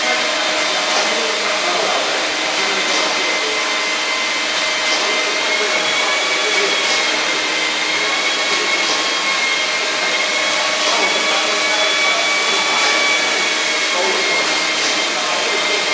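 Automatic four-side-seal sachet packing machine running: a steady whirring machine noise with a high, slightly wavering whine and a light tick about once a second.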